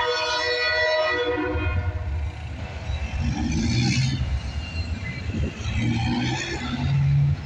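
Diesel freight locomotive's air horn sounding one long chord, which cuts off about a second and a half in. A low, rough rumble follows as the locomotive approaches.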